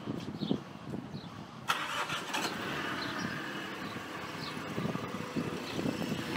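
Irregular footsteps with a few small high chirps, then about a second and a half in an engine starts abruptly and keeps running steadily.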